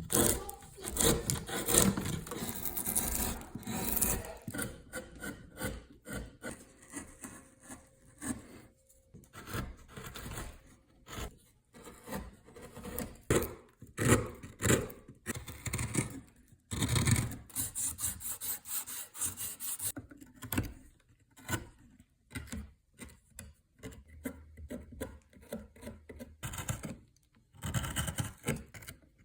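A carving tool scraping and rasping across wood in irregular strokes, with short pauses between bursts of work.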